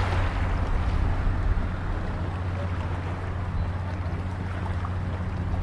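A steady low engine hum, running evenly under constant background noise.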